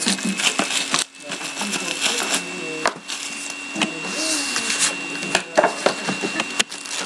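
Trading cards and their cardboard and wrapper packaging being handled: a busy run of clicks, taps and crinkles, with a faint steady high whine underneath.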